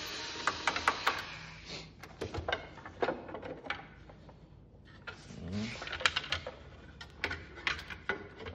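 Clicks, rattles and scraping from screws being backed out and the side plate being worked off a Minn Kota Powerdrive trolling motor's head, with a rustling stretch in the first two seconds and another about five seconds in.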